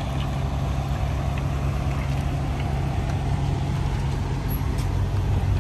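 1986 GMC pickup's carbureted 350 V8 running at low speed as the truck rolls slowly past, a steady, low-pitched engine sound.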